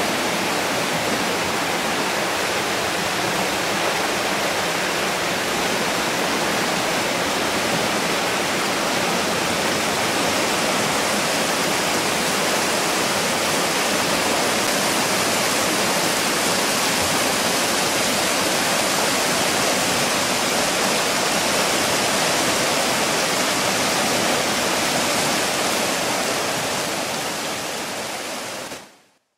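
Water from a spring rushing over rocks and small ledges in white rapids, a steady, even rush of flowing water. It fades out quickly near the end.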